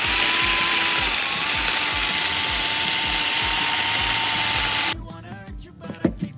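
Small electric mini food chopper's motor running with a steady whine, dipping slightly in pitch about a second in, then cutting off suddenly after about five seconds.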